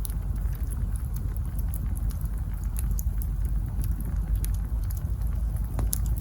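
Campfire of burning logs crackling, with many small, quick pops and one sharper pop near the end, over a steady low rumble.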